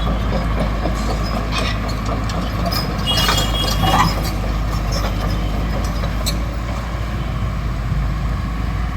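Diesel engine of a Tata Hitachi EX200 LC Super Plus excavator running steadily, with scattered clicks and a brief high-pitched squeal about three seconds in.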